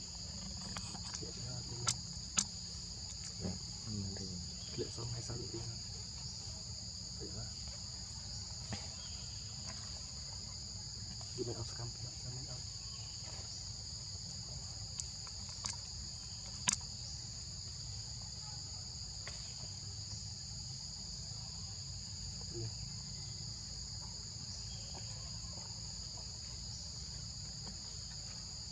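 Steady insect chorus: a continuous high buzzing held at two pitches, over a low rumble, with a few sharp clicks and faint rustles scattered through it.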